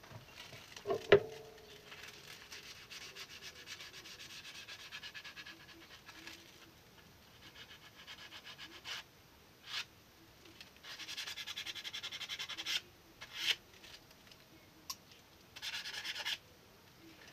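Small hand tin snips being handled on a wooden bench: a ringing metal clink about a second in, then stretches of rubbing and scraping with a few sharp clicks in between.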